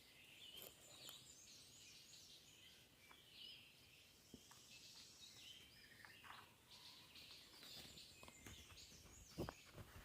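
Faint birdsong outdoors: several small birds chirping and calling throughout, with scattered small clicks and a single soft knock near the end.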